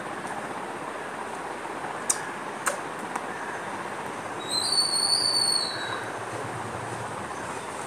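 A steady background noise with two sharp clicks, then a high whistle lasting about a second and a half a little past the middle.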